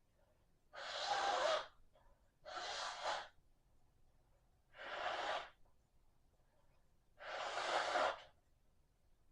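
A person coughing: four breathy coughs, each under a second long, spaced about two seconds apart.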